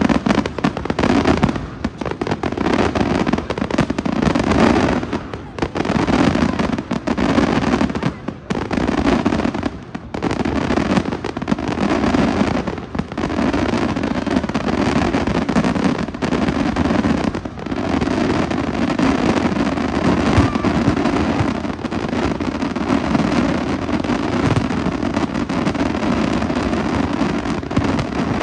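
A dense, nearly unbroken barrage of aerial fireworks: overlapping bangs and crackling, with a few short lulls.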